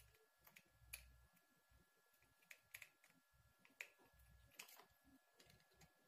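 Near silence broken by faint, scattered clicks and taps as a small plastic bed switch and its terminal screw are handled while a wire is fastened to it.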